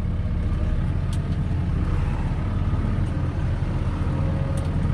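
Farm tractor engine running steadily under load as it drives through deep mud, with a few light rattles and ticks over the low rumble.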